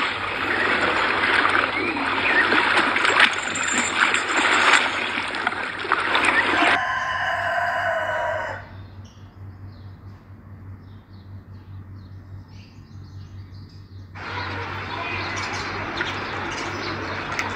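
Pool water splashing and sloshing around a swimming white lion, then a short pitched sound. It is followed by a quieter stretch with faint bird chirps, and steady outdoor noise returns near the end.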